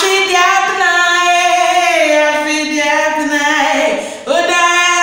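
A woman singing unaccompanied, holding long notes that slide between pitches, with a brief breath about four seconds in.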